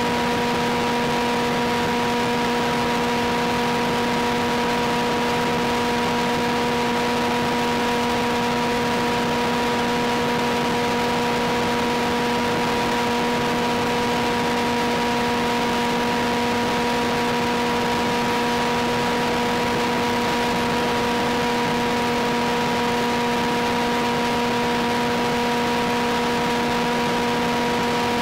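Steady hiss with four constant steady tones, unchanging throughout: the audio carried by an FPV video downlink from a Sky Surfer glider in flight.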